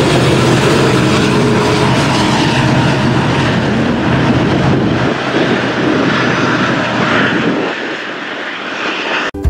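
A Union Pacific diesel locomotive passing as the rear distributed-power unit at the tail of a freight train. Its steady engine drone and rail noise fade away over the last few seconds as it moves off.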